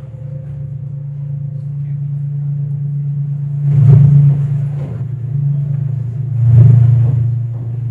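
Amplified low droning hum from an experimental wind-and-fan sound performance, with two loud swells of rushing, gusty noise about four seconds in and again about six and a half seconds in.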